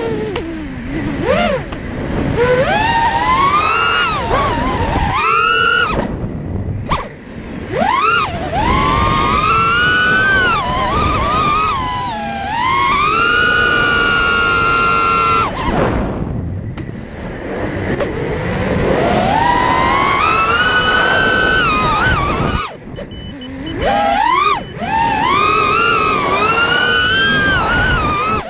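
FPV quadcopter's brushless motors whining, the pitch sweeping up and down with the throttle, with several short drops where the throttle is cut.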